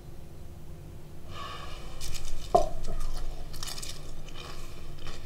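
A person biting into food and crunching it while chewing, with crackly crunches in the second half.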